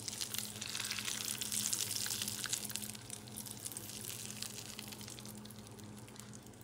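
Hot melted butter poured over sliced ribeye steak, sizzling and crackling as it foams on the hot meat. It is loudest in the first two or three seconds and dies down toward the end.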